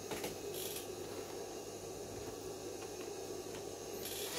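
Quiet room tone with a steady low hum, and a few faint clicks and a brief rustle as small plastic toy figures are handled and set down on a wooden tabletop.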